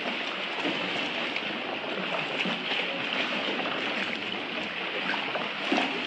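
Kayak being paddled: a steady wash of water noise from the paddle strokes and water lapping around the hull, with a slightly louder splash or knock near the end.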